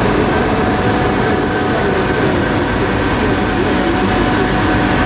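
Crankshaft turning lathe running steadily: an even, loud machine drone with a faint steady whine over it.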